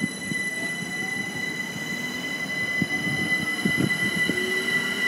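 Class 387 Electrostar electric train moving past, with a steady high whine. Wheels clatter over the rail joints with a few knocks, and brief wheel squeals sound from the rails.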